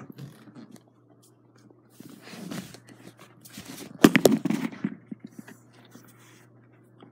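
Rustling, scraping and bumping handling noises, with a louder cluster of knocks and rustle about four seconds in.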